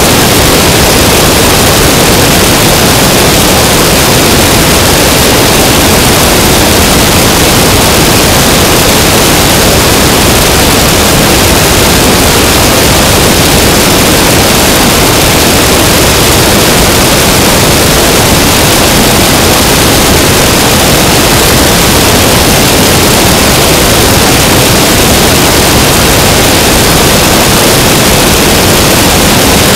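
Loud, steady rush of airflow and engine noise from an Aeronca Chief 11AC light plane in level flight. The sound is picked up by a camera mounted outside on the airframe, so it comes through as an even hiss with no distinct engine note.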